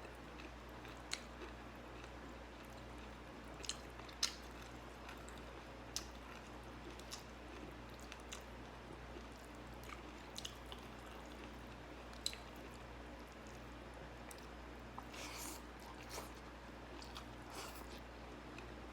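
A person chewing and biting food close to the microphone, eating rice with fresh vegetables: soft chewing with sharp crisp crunches scattered through and a quick flurry of them near the end. A faint steady hum runs underneath.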